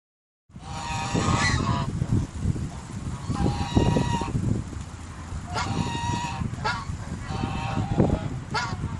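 Geese honking, a run of about six loud calls, over a steady low rumble. The sound starts abruptly about half a second in.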